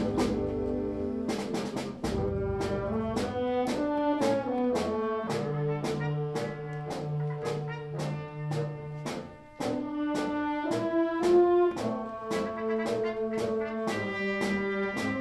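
Concert wind band playing a march-like passage, with brass carrying sustained chords and melody over a steady percussion beat of about two strokes a second.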